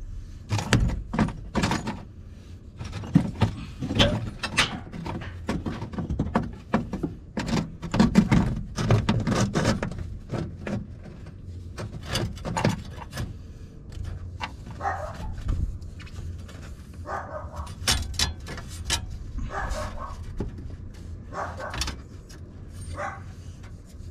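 A dog barking repeatedly in short barks, mixed with knocks and rubbing from copper-joined water pipes being handled.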